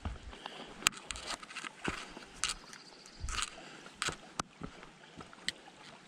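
A hiker's footsteps crunching and scuffing on a dirt and gravel trail, an uneven run of sharp steps and knocks, over the faint trickle of a shallow creek.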